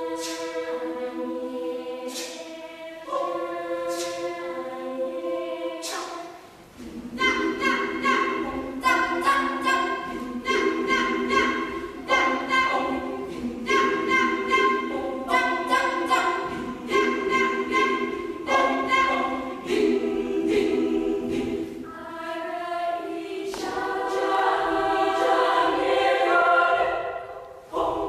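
Indonesian choir singing in parts. Held chords come first, then from about seven seconds a louder passage of short, rhythmic accented notes, and near the end a long chord that swells and then breaks off.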